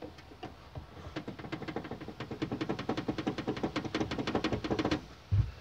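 Loose plastic strap across the back of a Nissan Versa's rear seat, moved by hand so it knocks rapidly against the car body, several taps a second, getting louder, then stopping, with one low thump near the end. This loose strap is the cause of the tinny knocking and vibration heard from behind the rear seat when driving over cobblestones.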